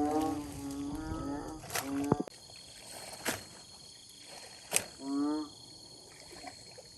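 Short pitched animal calls, one drawn out over the first second and a half and another brief one about five seconds in, with a few sharp clicks in between.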